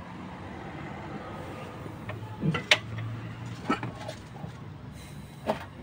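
A few sharp metallic clicks and clinks from hand work on the opened cylinder head of a 1.5 dCi diesel engine, the loudest about two and a half seconds in, with others about a second and near the end.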